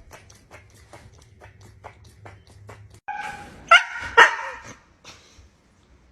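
A dog gives a brief whine, then barks twice sharply, about four seconds in, after a faint run of light clicks.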